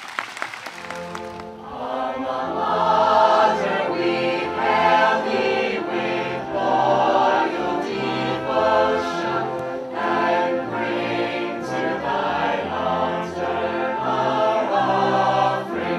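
Student a cappella group of mixed male and female voices singing in close harmony with no instruments, a low bass voice carrying the line underneath. The singing swells in over the first second or two.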